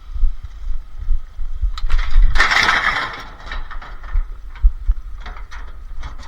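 Scrap metal being thrown onto a pile, with a loud clattering crash about two seconds in followed by several smaller knocks, over a low rumble.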